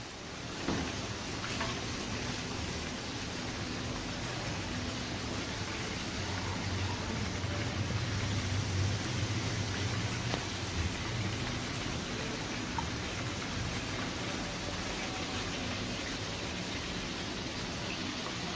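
Hot oil sizzling steadily as food deep-fries, a dense even crackle with a low hum underneath that swells in the middle.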